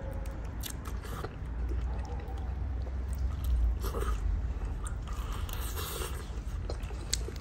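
Crunching bites and chewing of crispy fried chicken, the battered crust crackling in several sharp crunches through the stretch, over a low steady rumble.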